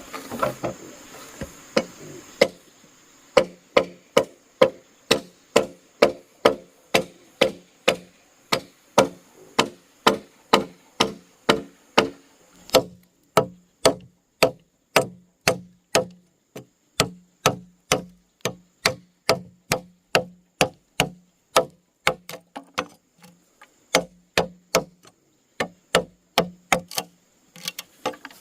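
A tool striking wood over and over at a steady pace of about two blows a second, each blow with a short, hollow ring. There are a couple of brief pauses along the way.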